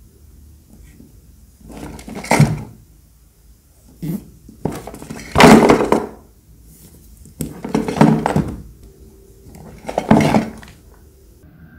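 Hands handling a cardboard gift box: four short bursts of scraping and rubbing a couple of seconds apart as the box is turned and its lid lifted.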